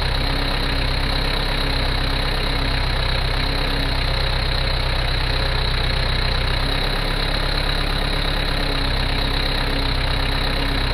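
Farm tractor engine idling at a steady speed.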